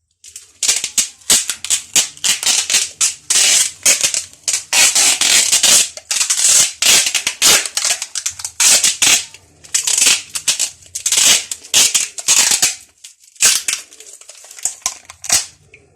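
Loud, irregular rustling and crinkling of a wrapping being handled and wound around a bottle, with brief pauses near the end.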